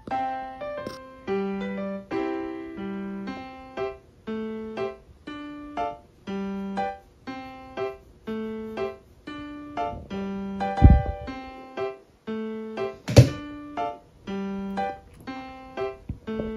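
Background music of steady, evenly paced piano-like keyboard notes. Two loud thumps cut through it, about 11 and 13 seconds in.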